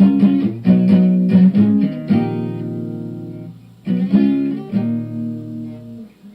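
Guitar playing chords that are struck and left to ring out, fading away about three and a half seconds in before the next chords come in.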